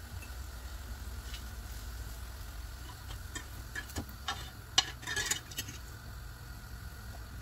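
Metal fork and spatula clicking and scraping on a nonstick grill pan as fried tuna patties are lifted off, a handful of sharp clicks in the second half with one louder click just before the five-second mark, over a steady low hum.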